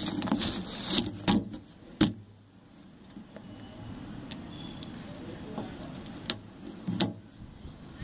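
Handling noise: several sharp knocks and clicks, the loudest about two seconds in and twice near the end, over a low rubbing rumble.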